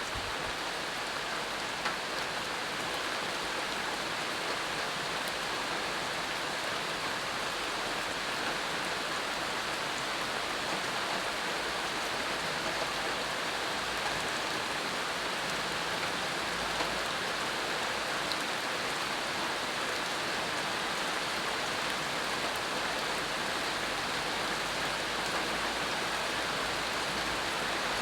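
Steady rain falling on the ground and leaves, an even patter with a few slightly louder drops.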